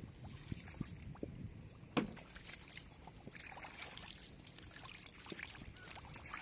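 Shallow muddy water sloshing and splashing in short, irregular strokes as a person wades through it and gropes in the mud with his hands, with one louder splash or thud about two seconds in.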